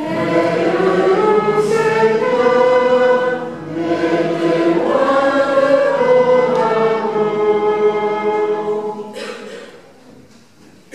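A church choir of men's and women's voices singing a short sung response together in two phrases, with a brief breath about four seconds in. The singing fades out about nine seconds in.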